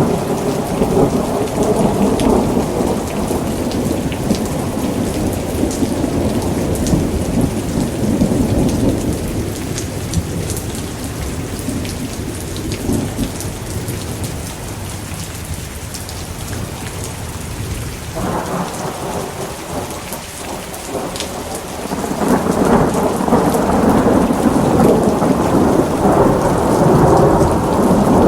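Thunderstorm: steady heavy rain with long rolling thunder. The rumble eases off through the middle and swells again about two-thirds of the way in.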